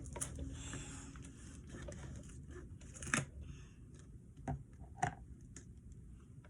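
Glue bottle and plastic slime containers being handled on a tabletop: faint rustling with a few sharp clicks and knocks, the loudest about three seconds in.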